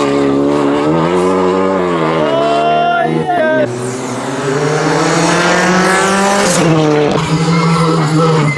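Rally car engine revving hard through the gears on a stage. The pitch climbs, falls sharply at a shift about three and a half seconds in, climbs again for a few seconds, and drops at another shift near the end.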